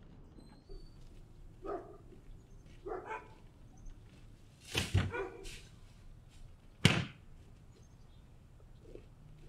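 A garbage bag thuds into a plastic wheeled garbage bin about five seconds in. About two seconds later there is a sharper, louder slam, the bin's plastic lid coming down shut.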